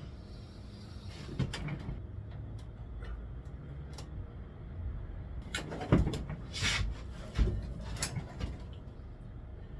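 Scattered knocks and rattles of bike parts and tools being handled while a brake is fitted: a couple of light knocks about a second and a half in, then a cluster of louder clunks and rattles from about six to eight seconds in.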